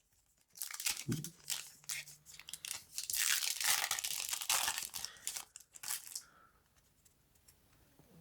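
Foil booster pack wrapper crinkling and being torn open, a run of rustling and tearing that is densest in the middle and stops about six seconds in.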